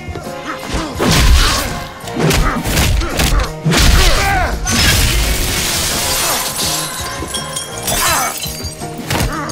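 Fight-scene sound effects over a dramatic music score: heavy blows and thuds, and glass shattering. A long crash of breaking glass runs through the middle.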